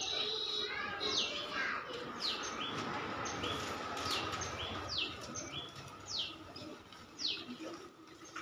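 A bird calling over and over, each call a short high note that falls in pitch, roughly once a second and not evenly spaced, over low background noise.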